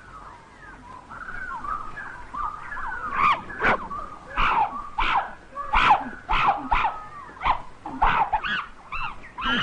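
Animal calls: soft chirping at first, then from about three seconds in a run of loud, sharp, high cries, about two a second.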